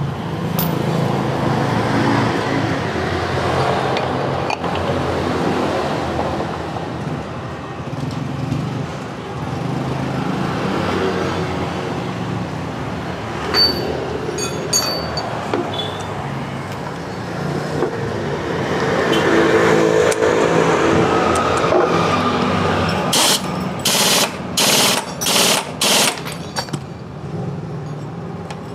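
Yamaha Mio scooter's small single-cylinder engine running, getting louder for a few seconds about twenty seconds in. Near the end come five short, sharp hissing blasts.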